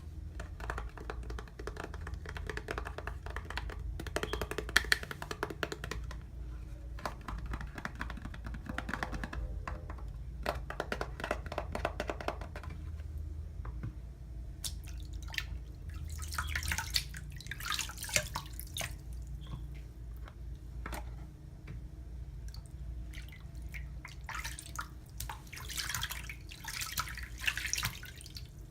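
Irish Spring bar soap being lathered with water, a wet squelching and crackling of foam. From about halfway through it turns to brighter, hissier swishes.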